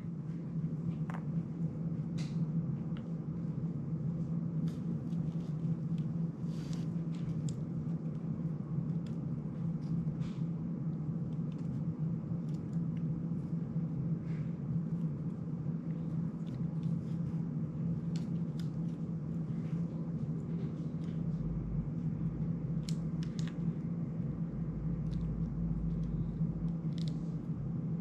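Steady low hum with scattered light clicks and taps as a small FPV drone and its parts are handled at a work desk; a faint low rumble comes in for a few seconds in the last third.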